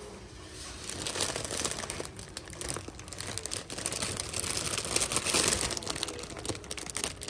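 Clear plastic bag crinkling as it is handled by hand: a dense, crackly rustle that starts about a second in and is loudest around the fifth second.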